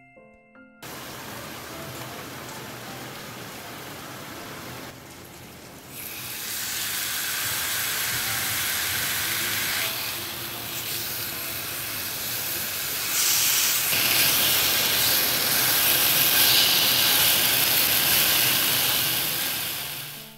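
Marinated chicken breast sizzling in oil in a nonstick frying pan. The hissing starts suddenly about a second in, then grows louder about six seconds in and again about halfway through.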